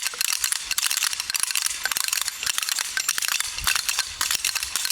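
Wooden Easter clappers and ratchets (Klappern and Ratschen) rattling together in a group: a dense, fast, continuous clatter of wooden clicks.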